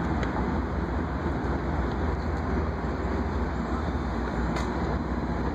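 Long Island Rail Road train moving slowly along the station platform: a steady low rumble with a hiss over it.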